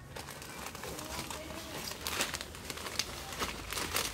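Large clear plastic bags of chips crinkling and rustling as they are handled and moved, with irregular crackles.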